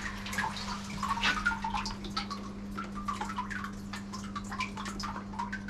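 Loose blasting media ticking and trickling, with small knocks, as a freshly blasted aluminium engine crankcase half is handled and turned inside a sandblasting cabinet, over a steady low hum.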